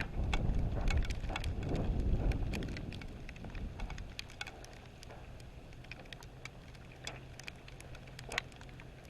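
Sleet pellets ticking sharply and irregularly as they strike hard surfaces, with wind buffeting the microphone in a low rumble for the first three seconds or so before it eases.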